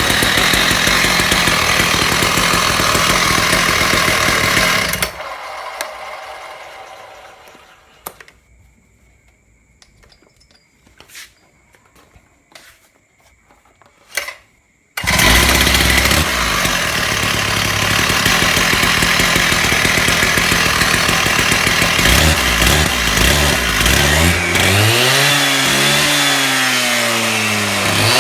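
Husqvarna petrol concrete saw running loudly, then dying away over a few seconds to near quiet with a few clicks. About halfway through it is running loudly again, and near the end the engine revs up and down several times.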